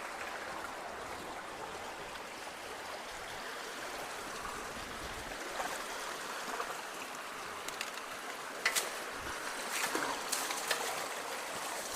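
Creek water flowing steadily, with a few short sharp knocks in the second half.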